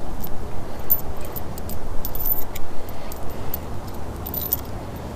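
Small metal hardware (thumb screws, hex-head bolts and nylock nuts) clinking and rattling as it is handled, in a run of irregular sharp clicks that stops near the end, over a steady low rumble.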